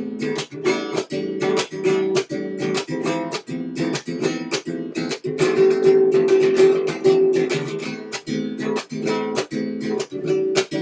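Acoustic guitar strummed in a fast, even flamenco-style rhythm, with a louder, denser stretch of ringing chords in the middle.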